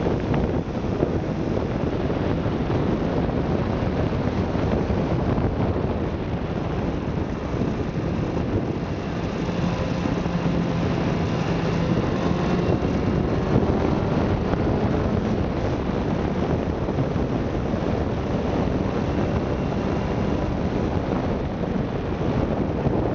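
Steady wind buffeting on the microphone of a vehicle moving at road speed, with engine and road noise running underneath.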